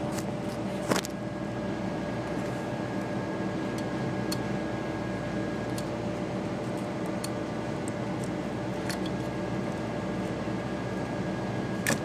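Faint scattered clicks and taps of hands and a screwdriver working at a refrigerator compressor's start relay to pull it off, over a steady machine hum.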